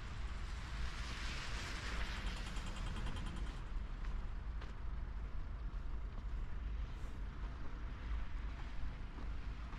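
Outdoor street ambience: a steady low rumble of traffic, with a hiss that swells over the first two seconds or so and dies away about three and a half seconds in.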